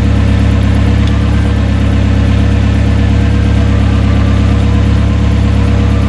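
Freshly rebuilt Nissan KA24E 2.4-litre single-cam inline-four idling steadily, running evenly again but with its idle still set a little high.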